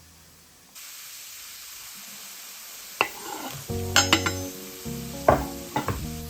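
Food sizzling in a hot frying pan, starting suddenly about a second in, with several sharp knocks and clinks of a utensil against the pan in the second half.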